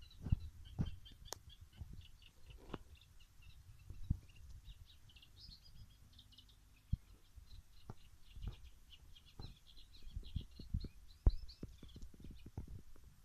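Small birds chirping in quick, irregular short notes, with scattered low thumps and knocks.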